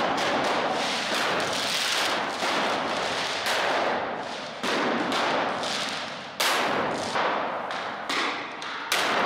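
Firecrackers and stun grenades going off in a hall: a dense, continuous crackle of bangs, with several louder blasts that ring on after each hit.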